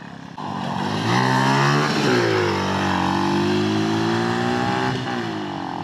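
Small single-cylinder go-kart engine running under throttle as it drives off-road, its pitch climbing about a second in, dropping near two seconds, then holding a fairly steady run with a slow rise.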